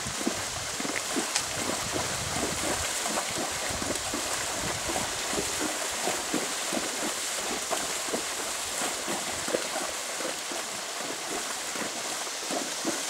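Hooves of a Tennessee Walking Horse splashing through shallow creek water at a steady gait: a continuous rapid splashing, with a dog splashing along behind.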